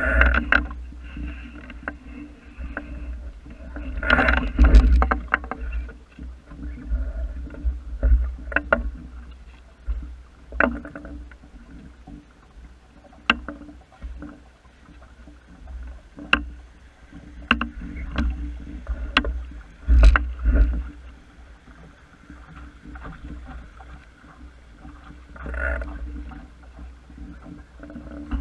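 Small wooden sailing dinghy under way: wind gusting on the microphone over water noise along the hull, with scattered sharp knocks and clicks from the boat and its rigging.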